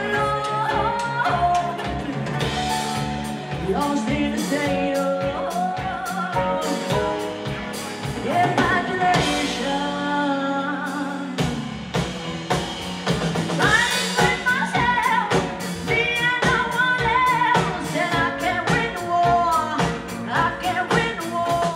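A song played by a band, with a voice singing a bending melody over a steady drum beat.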